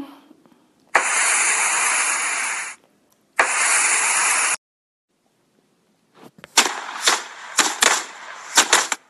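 Snapchat lens sound effects: two loud rushing hisses, about a second and a half and then a second long, each cutting off sharply, while blue fluff blows from the mouth. After a pause comes a quick run of sharp pops and cracks as bursts of coloured powder go off.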